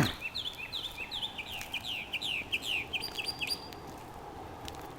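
A songbird singing a rapid series of short, falling whistled notes, about four a second, stopping about three and a half seconds in. A brief burst of noise right at the start.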